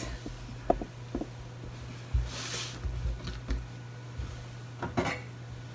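Kitchen handling sounds as boiled komatsuna is set down on a cutting board: a few soft knocks and thumps and a brief rustle about halfway through, over a steady low hum.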